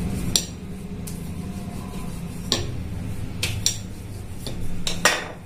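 Wooden rolling pin rolling dough out on a stone countertop, with about six sharp knocks as the pin strikes the counter, over a steady low hum.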